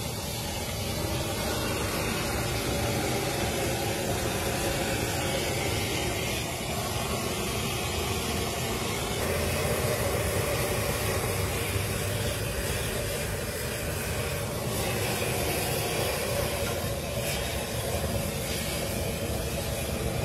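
Steady hiss and rumble of a street-stall gas wok burner, with food being fried and tossed in the wok above it.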